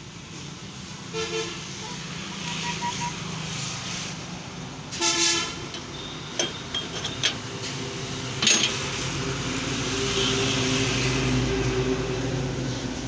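Background road traffic with vehicle horns honking: a short honk about a second in and a louder one about five seconds in. A few sharp clicks follow, and a passing vehicle's engine grows louder near the end.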